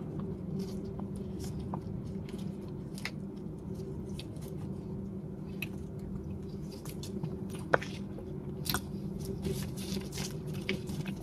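Close-miked chewing of a soft, sticky glutinous-rice cake, with wet mouth clicks and smacks over a steady low hum. Toward the end the dried leaf wrapper of the next cake crinkles as it is handled and peeled.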